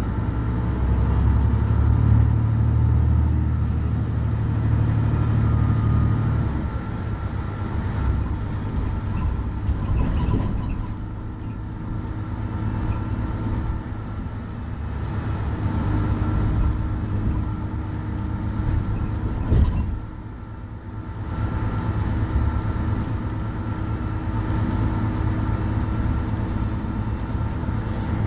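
Mercedes-Benz Citaro C2 bus's OM 936 six-cylinder diesel idling at standstill: a steady low drone with a faint whine over it. The low drone is louder for the first six seconds or so, then settles. A short sharp sound comes about two-thirds of the way through, followed by a brief dip in level.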